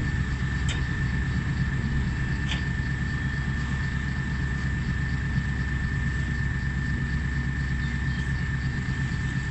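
Komatsu hydraulic excavator's diesel engine running with a steady low drone as the machine digs and swings a loaded bucket, with a constant high whine above the drone.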